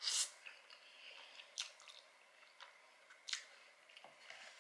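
A person slurping in a mouthful of saucy spaghetti noodles at the start, then chewing with soft wet mouth clicks and smacks, one louder smack a little past three seconds in.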